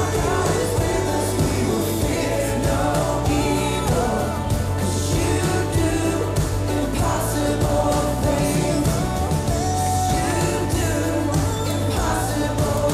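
Christian worship song with singing over full band accompaniment and a steady bass.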